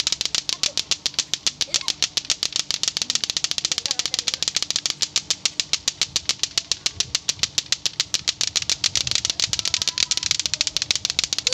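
Lato-lato clackers, pairs of hard plastic balls on strings, knocking together as several sets are swung at once: a fast, steady run of sharp clacks at about ten a second.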